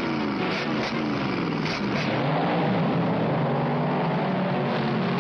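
Cartoon car engine sound effect, its pitch sliding down over the first couple of seconds and then running steady, with a few short knocks early on.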